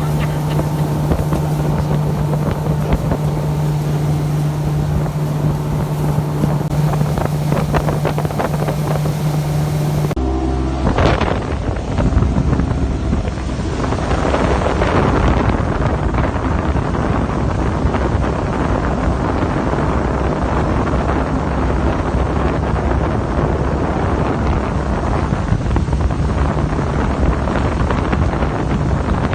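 Motorboat engine running at a steady pitch. About a third of the way in the sound cuts to wind buffeting the microphone over a lower, steady engine drone.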